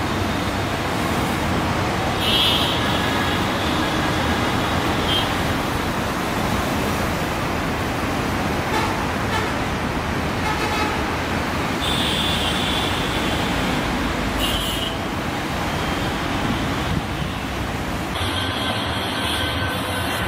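Steady road-traffic noise with several short, high-pitched vehicle horn toots, about 2, 5, 12 and 15 seconds in and again near the end.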